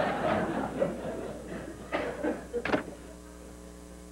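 Studio audience laughter dying away, then a few sharp knocks and clatters as items are handled on a desk, the loudest near the end, over a steady electrical hum.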